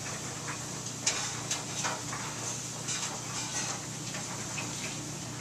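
Front-loading clothes dryer running with a steady hum and rush, and scattered light clicks and taps over it at irregular intervals.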